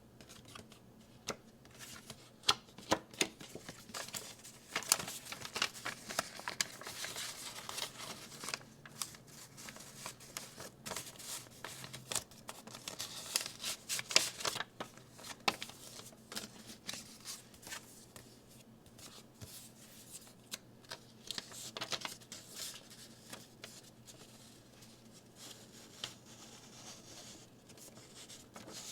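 Hands handling a 7-inch vinyl single and its packaging: paper and plastic rustling and sliding, broken by many light taps and clicks.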